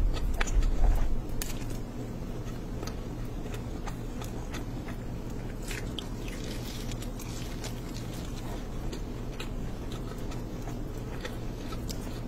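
Close-miked eating sounds: wet chewing and lip smacks with many small sharp clicks, alongside fingers squelching through rice and curry gravy, over a steady low hum. The first second or so is louder.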